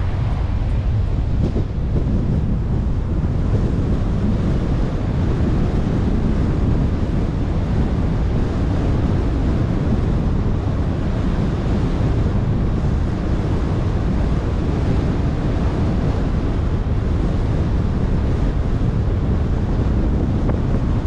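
Steady low rumble of wind and tyre noise from a car driving along at an even pace, with wind buffeting the microphone.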